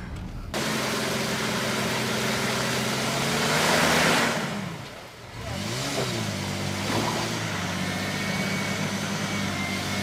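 Mitsubishi Pajero Sport's engine working under load in deep mud. It runs steadily, swells with a loud rush about four seconds in, drops away about a second later, then picks back up and holds steady.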